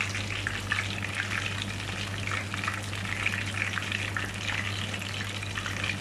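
A whole boiled chicken frying in a pan of hot oil: a steady crackle and sizzle of bubbling oil with many fine pops.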